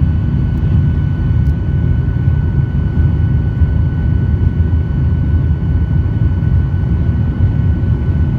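Boeing 737-800 cabin noise: the CFM56 jet engines and airflow give a steady, loud low rumble, with a thin steady whine running over it.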